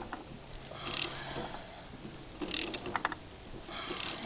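Hand socket ratchet turning the forcing bolt of a steering-wheel puller under load, the ratchet clicking on each return stroke about every second and a half, with a few sharp clicks about three seconds in.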